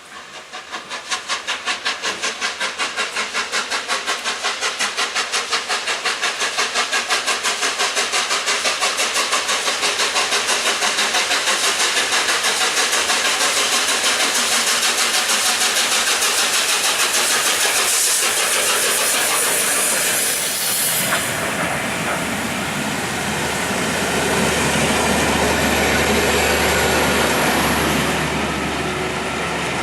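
Peppercorn A1 Pacific steam locomotive 60163 Tornado working with a fast, even beat from its exhaust. About twenty seconds in, the beats give way to a low rumble and hiss.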